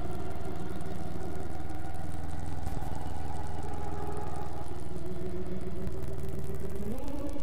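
Loud, steady low drone from the experimental soundtrack, engine-like, with a stack of held tones that glides up in pitch near the end.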